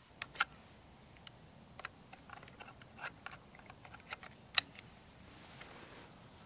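Scattered sharp metallic clicks and taps from handling a CZ 457 Royal bolt-action .22 rimfire rifle as its magazine is fitted. The loudest click comes about four and a half seconds in.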